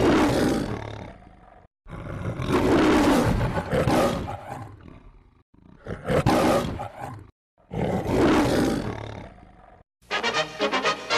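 Four lion roars in the manner of the MGM film-studio opening, each dying away before a short silence. Orchestral music comes back in near the end.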